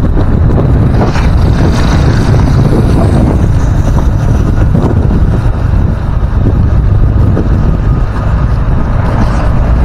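Loud wind rumble buffeting the microphone of an action camera on a moving motorcycle, with the motorcycle's engine running underneath.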